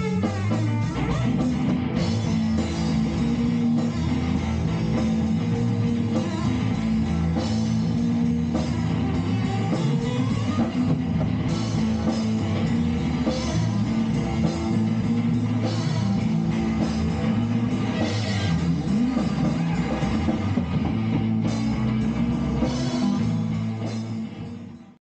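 Rock band playing an instrumental passage, electric guitar over bass and drum kit, fading out at the end.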